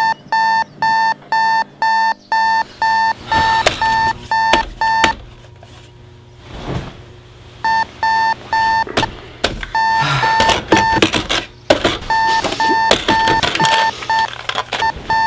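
Digital alarm clock beeping, about two beeps a second. It stops after about five seconds, then starts again about two and a half seconds later, with rustling and knocks over the beeping in the second half.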